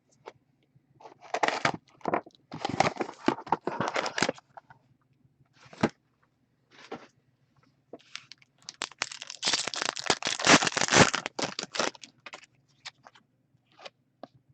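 Foil trading-card pack wrappers tearing and crinkling as hockey card packs are opened and the cards handled, in irregular bouts of a second or two, the longest about ten seconds in, with scattered light clicks between.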